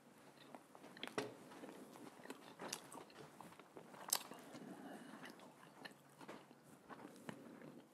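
Faint close-miked chewing of a mouthful of Italian sub sandwich, with soft wet mouth clicks, mixed with the crackle of the bread roll as it is pulled open by hand. The sharpest crackles come about a second in and about four seconds in.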